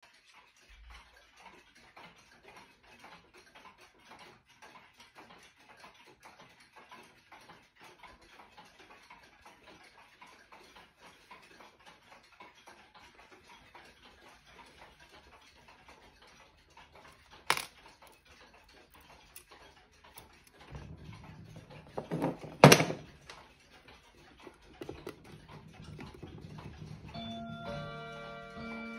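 Mechanical clocks ticking steadily in a clock collection, with a sharp click about seventeen seconds in and a loud knock about twenty-three seconds in. Near the end, several steady tones sound over the ticking.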